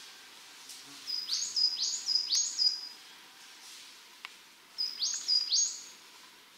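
A small songbird calling in two quick runs of high notes, each note sweeping up and then held briefly, over a faint steady woodland hiss.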